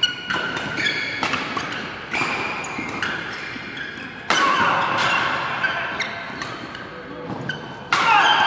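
Badminton doubles rally: sharp racket strikes on the shuttlecock and shoes squeaking on the court mat, echoing in a large hall. About four seconds in and again near the end there is a sudden loud hit, as from a jump smash.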